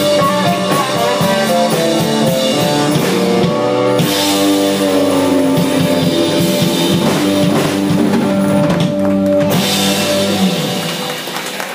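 Live rock band playing a song's closing section, with drum kit and guitars over sustained chords. Big crashes come about four and nine and a half seconds in, and the last chord rings out and fades near the end.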